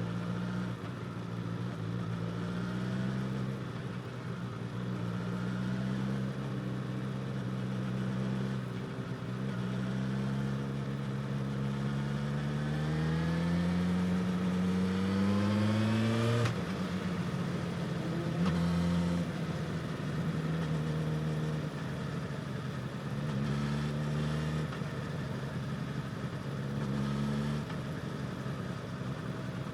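2018 Suzuki GSX-S1000's inline-four with a slip-on exhaust under way: a steady drone, then a long rising rev that cuts off sharply about halfway through, followed by shorter rises and drops as it changes gear.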